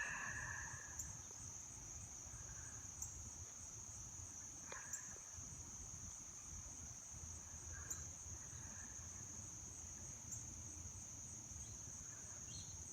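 Steady high-pitched trill of an insect chorus, with a few faint ticks.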